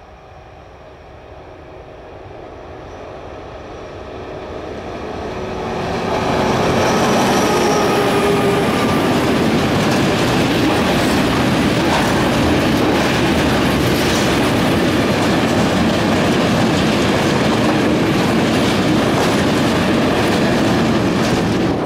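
Freight train of tank wagons approaching and passing close by: the rumble swells over the first six seconds, then holds as a steady loud rumble with a continuous clatter of wheels over the rails as the wagons roll past.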